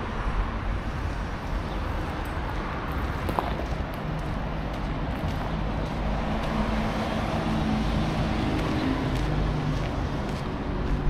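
Street ambience with road traffic: a motor vehicle's engine hum grows louder over the second half.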